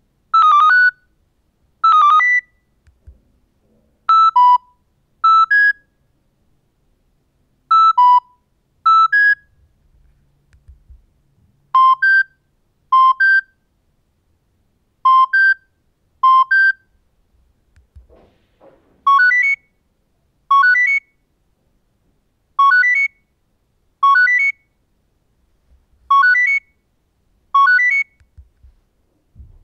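Nokia 6600 mobile phone's built-in message alert tones, played one after another. Each is a short figure of two or three electronic beeps, sounded twice about a second apart, with pauses between. Rising three-beep figures come in the last third.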